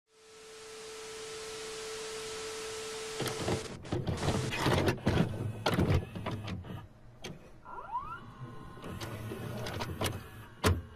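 Sound effect of a VCR loading and starting a VHS tape: a steady hiss with a steady tone for about three seconds, then a run of mechanical clicks and clunks from the tape mechanism, a short rising motor whine about eight seconds in, and a last click near the end.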